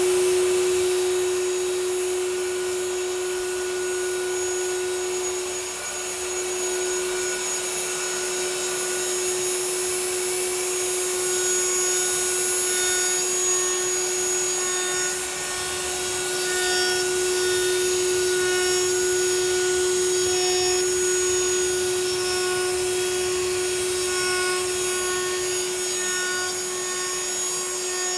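An ATC CNC router milling aluminum plate: the spindle runs with one steady, unchanging tone over the hiss of the cutter in the metal, with small dips in loudness as the cut goes on.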